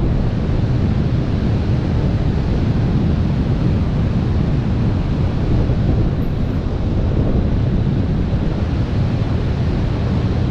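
Loud, steady rush of wind buffeting a camera microphone as a wingsuit pilot glides at speed, the airflow of full wingsuit flight.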